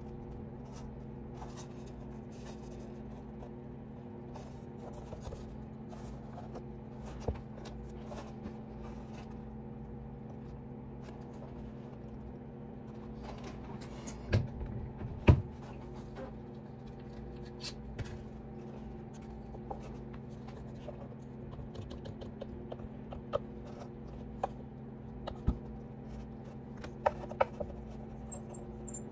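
Wooden fiddle body being handled and set on a workbench: scattered light knocks and clicks, the loudest a pair of knocks about halfway through. Near the end come sharper clicks as wooden spool clamps are fitted and tightened around its edge. A steady hum runs underneath.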